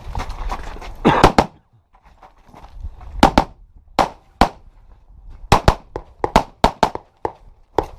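Pistol shots fired in rapid succession, about a dozen, mostly in quick pairs a fraction of a second apart, with short pauses between groups as the shooter moves between targets.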